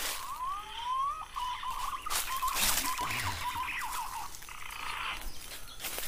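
Whistled bird calls: a couple of rising glides, then a string of short notes at about the same pitch. Footsteps crunch and rustle through dry leaf litter.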